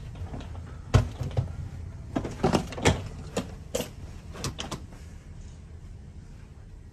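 Cabin door and its wooden fittings being handled: a string of sharp clicks and knocks, the loudest about a second in, the rest spread over the next few seconds, over a low steady hum.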